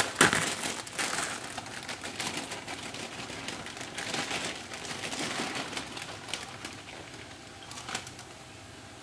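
Plastic bag of prepared stir-fry vegetables crinkling as it is handled and opened, loudest in the first second, then rustling in bursts as the vegetables are tipped out of it into a frying pan.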